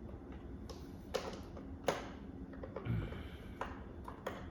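Irregular small plastic clicks and knocks, about seven of them, as the Roomba's brush rollers are handled and fitted back into the cleaning head.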